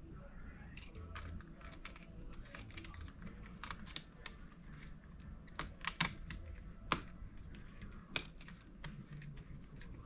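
Irregular light clicks and taps of small plastic and metal parts being handled during a laptop RAM upgrade, with a few sharper clicks about six and seven seconds in.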